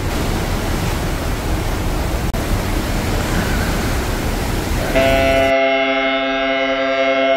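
Wind noise on the microphone over the churn of a cruise ship's wake and open sea. About five seconds in, this cuts to a held chord of music.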